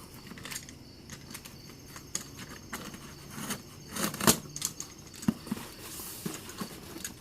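A box being opened by hand: scattered clicks, rustling and tearing of packaging, with the loudest snaps about four seconds in.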